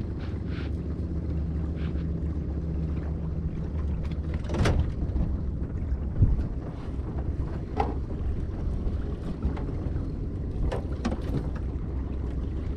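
Small outboard motor on a metal boat running at low revs, a steady low drone with a few sharp clicks and knocks and one low thump about six seconds in. The motor is failing to pick up speed, which the owner suspects is a fuel-pump fault.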